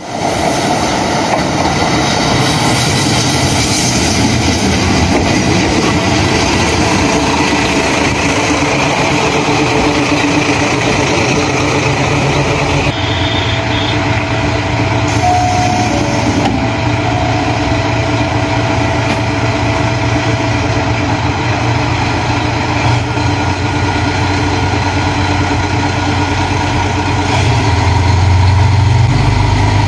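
KiHa 54 diesel railcar running into the station over the rails and coming to a stop, then its diesel engine idling with a steady low hum. Near the end the engine gets louder.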